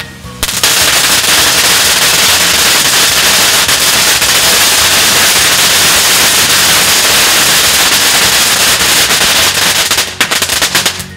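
A large firecracker roll going off, so loud: about half a second in, the bangs run together into one dense, continuous crackle for about nine seconds, then thin out into scattered separate bangs near the end.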